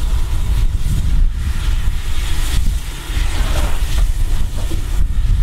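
Wind buffeting the microphone in a steady, uneven low rumble, with a faint hiss over it.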